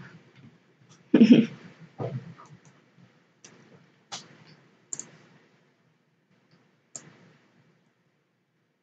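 Sparse, separate computer mouse clicks, four or five over several seconds, as drawing-program tools and settings are picked. A louder short noise comes about a second in, followed by a softer one.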